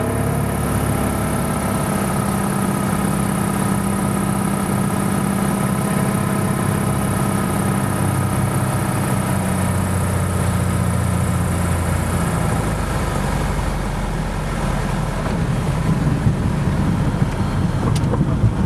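Light single-engine propeller plane's engine droning steadily in the cabin on the landing approach. About twelve seconds in, once the plane is on the runway, the engine note drops and changes, and near the end there are a few uneven bumps and rattles as it rolls along the runway.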